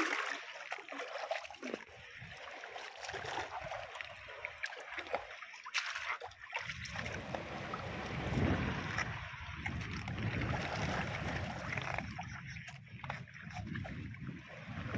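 Shallow seawater lapping and trickling among rocks and tide pools on a reef flat at low tide, with a few light knocks early on and a steady low rumble setting in about halfway through.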